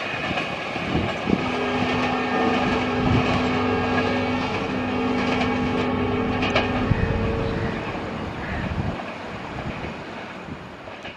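Diesel-hauled passenger train running away down the track, a steady rumble with occasional wheel clicks that fades over the last few seconds. Through the middle a steady two-note tone sounds for about five seconds, with a brief break partway through.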